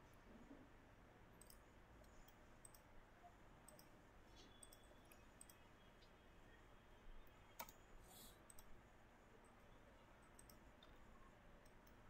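Faint computer mouse clicks, a dozen or so at irregular intervals, over near silence; the loudest comes a little past halfway.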